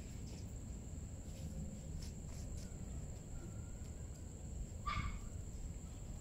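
Steady low outdoor rumble with a thin high hiss, and one short high-pitched cry about five seconds in.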